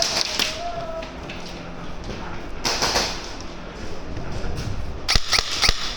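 Airsoft guns firing during a game: a short rush of noise about three seconds in, then a quick string of sharp snaps near the end.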